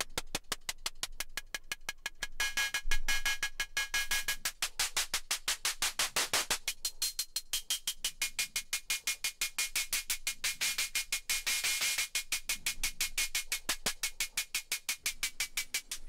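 Synthesized hi-hats from a Plaits-clone Eurorack oscillator's analog hi-hat model, playing a rapid, even stream of hits. The hits are bright and metallic-noisy, and their ringing tone and brightness shift as the timbre, harmonics and decay knobs are turned.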